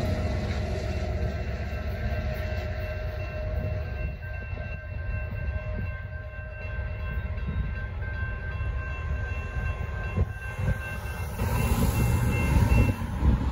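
Railroad crossing bell ringing steadily over the fading rumble of a departing freight train, stopping near the end as the gate arms reach upright. A car drives across the tracks about twelve seconds in.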